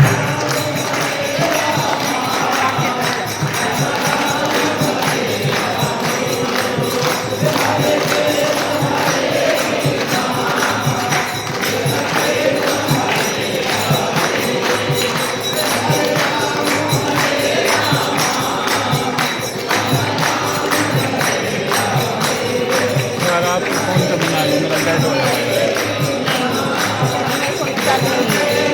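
Hindu devotional kirtan music: voices chanting together over a steady, jingling hand-percussion beat.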